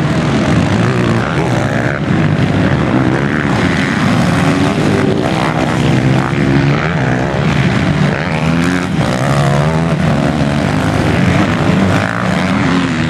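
Several motocross bikes' engines revving, their pitch rising and falling over one another as the riders work the throttle.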